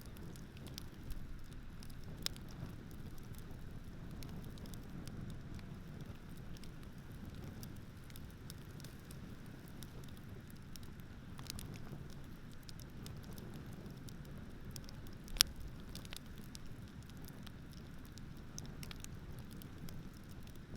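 Campfire crackling with scattered small pops and one sharp, loud pop about fifteen seconds in, over a steady low rumble of ocean surf.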